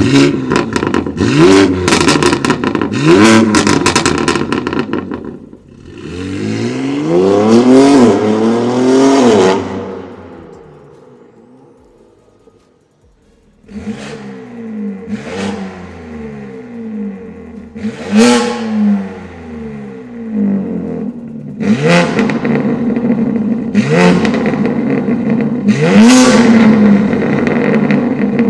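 A BMW G80 M3's S58 twin-turbo inline-six, with catless downpipes and a single mid-pipe, is revved through its aftermarket exhaust. First come two quick throttle blips, then one longer rev that climbs and falls away. After a short lull it idles, with a run of sharp blips every couple of seconds.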